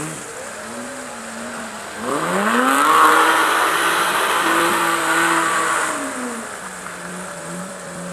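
Rally car's engine revving hard on a muddy clay surface: the note climbs steeply about two seconds in, holds high with a broad rushing noise under it, then drops back about six seconds in.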